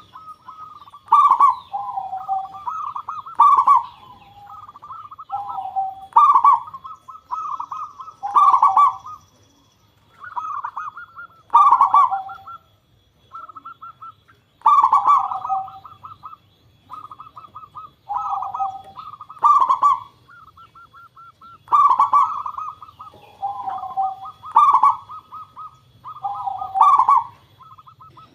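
Local zebra doves (perkutut) cooing, with repeated phrases of rapid, clipped notes ending in a trill every two to three seconds. The phrases come at two pitches and sometimes overlap.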